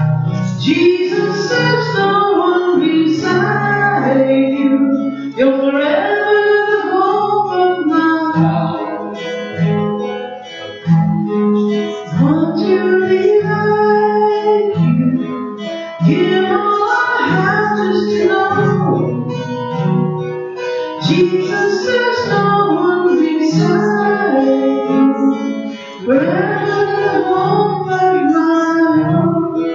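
Live song: a singer singing while playing an acoustic guitar.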